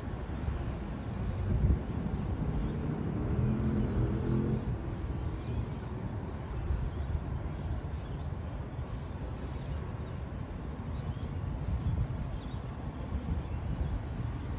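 Low outdoor rumble of vehicles, with an HCMT electric suburban train creeping towards the microphone out of the stabling yard. A pitched hum rises slightly from about two and a half seconds in and fades out by about five seconds.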